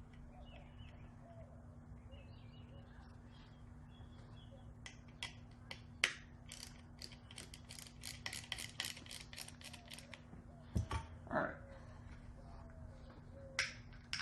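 Sharp mechanical clicks in quick succession, about four a second for several seconds, then a louder knock and a single click, over a faint steady hum: hand work refitting a sensor on the car.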